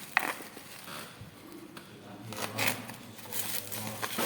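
Charger packaging being handled: a sharp click about a quarter second in, then irregular rustling and scraping.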